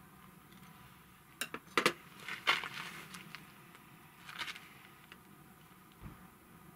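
A few sharp clicks and short crackly rustles of food and tableware being handled at a camp table, the loudest between about one and a half and two and a half seconds in, and a smaller cluster about four and a half seconds in.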